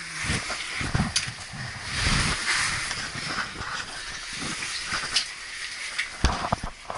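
Rustling and scraping of a caver's clothing and gear against rock while crawling through a tight cave passage, with scattered knocks and a sharper knock near the end.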